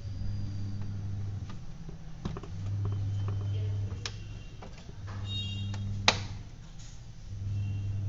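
A desktop RAM module pushed into a motherboard memory slot: plastic clicks and scraping, with a sharp snap about six seconds in as the slot's latch catches. A low hum comes and goes every second or two throughout.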